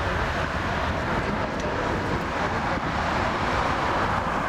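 Steady, distant roar of an Airbus A320-232's two IAE V2500 turbofans at takeoff thrust during the takeoff roll.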